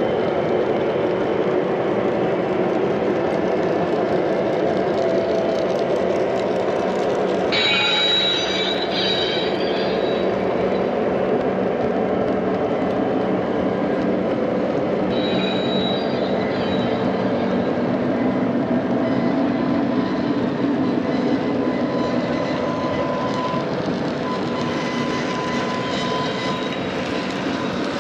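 Lionel O-gauge freight cars rolling on three-rail track: a steady rumble of metal wheels on the rails, with brief high wheel squeals about eight seconds in and again about fifteen seconds in.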